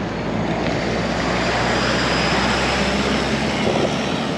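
A truck passing close by a cyclist on the road: a steady engine hum under loud tyre and wind rush. The low hum drops away about three and a half seconds in as the truck pulls ahead.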